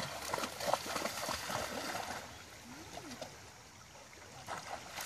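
Dogs splashing as they wade through shallow river water during the first two seconds, then the softer, steady running of the stream.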